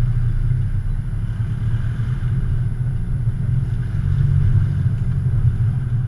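An Isuzu 4x4's engine running steadily at low revs, a low even engine note.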